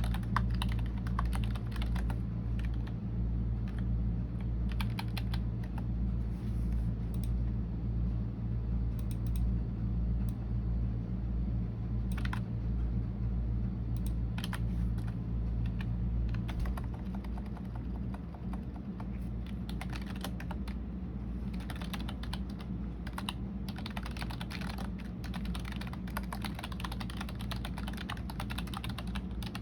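Typing on a computer keyboard: runs of key clicks in irregular bursts with short pauses, busiest in the last third. A steady low hum runs underneath and drops slightly about two-thirds of the way through.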